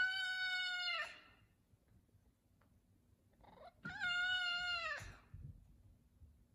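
F2 Savannah cat meowing twice: two long, drawn-out meows about three seconds apart, each falling in pitch at the end. The cat is calling for its chicken.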